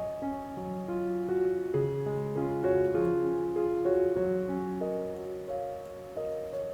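Soft background piano music playing a slow melody over sustained chords.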